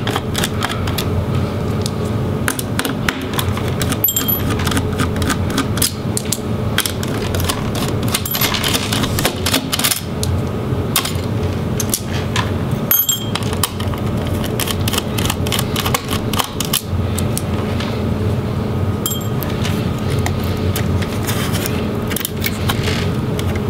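Small Phillips screwdriver turning out the motherboard screws of a Dell Latitude 5580 laptop: irregular light clicks and ticks, a few with a short metallic ring, over a steady low hum.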